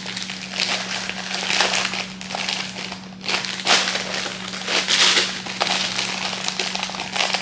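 Plastic candy bags and wrappers crinkling and rustling in irregular bursts as they are handled and packed into a small basket, over a steady low hum.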